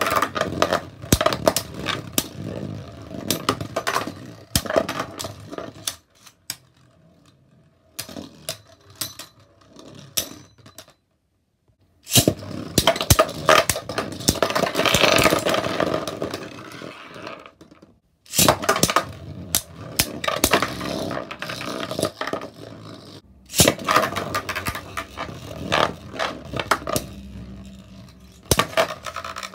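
Beyblade Burst spinning tops grinding and clacking against each other and the plastic stadium floor and walls, with many sharp collision clicks over a scraping whirr. The clatter stops for brief pauses a few times and starts up again with each new round.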